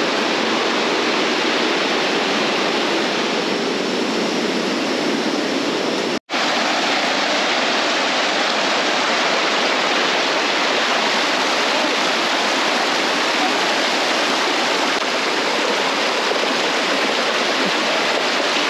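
Rushing water from a swollen, muddy jungle stream, a loud steady rush that cuts out for an instant about six seconds in.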